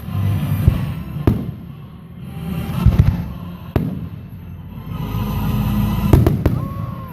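Aerial fireworks shells bursting overhead: about six sharp bangs, two of them close together near the end, with a low rolling rumble of booms swelling between them.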